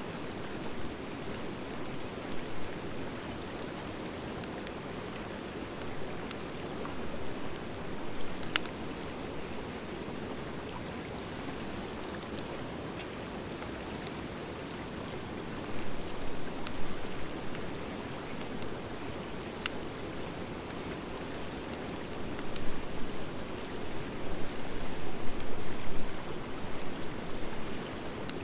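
Wood fire of driftwood and dry hardwood burning, with a steady rush of flames and a few sharp crackling pops, the sharpest about a third of the way in. The flames flare louder in fluttering surges in the second half.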